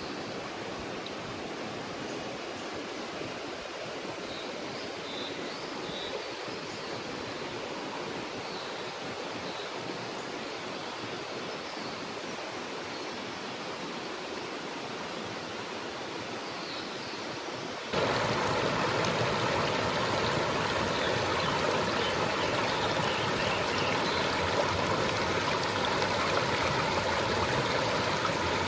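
Forest river flowing, a steady rush of water with a few faint high chirps. About two-thirds of the way through it cuts abruptly to a louder, closer rush of water.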